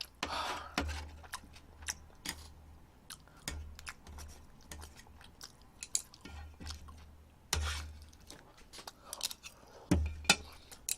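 Close-miked chewing and wet mouth sounds: irregular smacks and clicks, a few every second, with short pauses.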